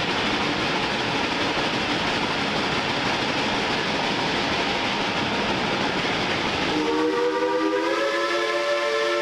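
Shay geared steam locomotive #2 working up the grade, a dense steady noise of steam and running gear. About seven seconds in, its steam whistle starts to blow, several pitches sounding together as a chord; the pitch rises slightly as it opens up, and it holds on.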